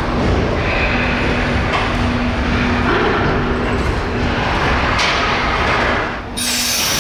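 Freight wagon wheels rolling slowly over rails, a steady rumble with thin squealing tones. A little after six seconds the sound dips briefly and changes to a brighter hiss.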